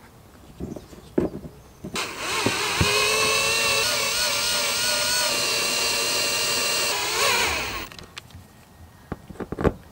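Cordless drill/driver running at a steady pitch for about five and a half seconds, driving a mounting screw of a shore-power inlet's flange into a van's sheet-metal body. The pitch bends up briefly just before the motor stops. A few light handling clicks come before it.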